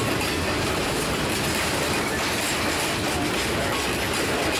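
Steel wheels and trucks of loaded grain freight cars rolling past on the rail: a steady rumble with continuous wheel clatter.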